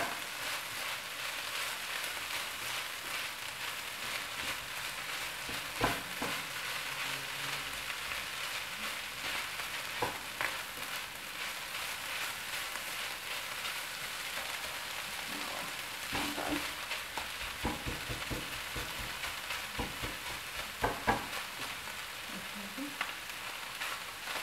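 Tuna and onion filling sizzling in a nonstick frying pan over a gas flame while a silicone spatula stirs it, scraping the pan and knocking against it now and then.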